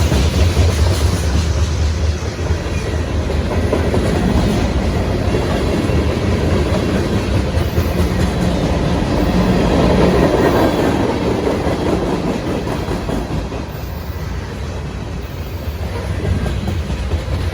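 CSX freight train rolling past, its cars running steadily over the rails with wheel-on-rail clatter. The noise swells about halfway through and eases a little a few seconds later.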